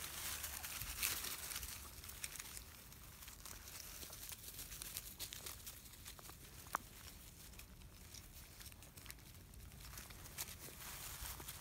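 Labrador puppies scrambling over dry grass and fallen leaves, a continuous crackle and rustle of many small clicks. One sharper click stands out a little under seven seconds in.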